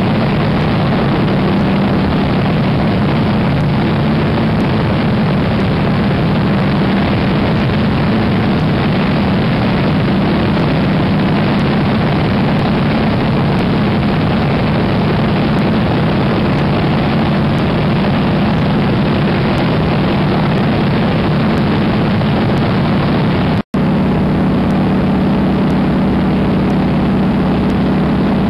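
Steady drone of an AT-6 Texan's Pratt & Whitney R-1340 Wasp radial engine and propeller in cruise, heard from inside the cockpit together with airflow noise. The sound cuts out for an instant about three-quarters of the way through.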